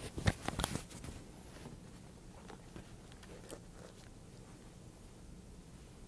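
Handling noise: a burst of rustles and clicks in the first second, then quiet room tone with a few faint ticks.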